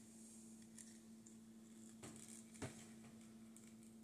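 Near silence over a steady low hum, with a few faint clicks of the hard plastic parts of a Cobra Night Raven toy drone being handled and pulled apart, the clearest about two and a half seconds in.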